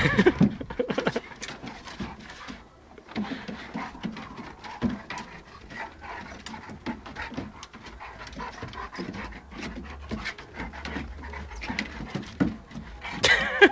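Golden retriever and Jack Russell terrier puppy play-fighting: steady dog panting with short scuffling and vocal noises, loudest in the first second and again just before the end.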